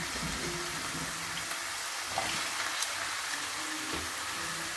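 Potato fries frying in hot oil in a pan: a steady sizzle with scattered small pops. They are in their first, half-cooking fry before being taken out and fried again for crispness.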